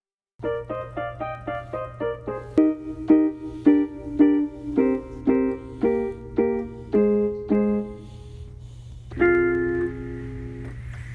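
Piano or keyboard music. A quick run of single notes gives way to slower notes and a held chord near the end.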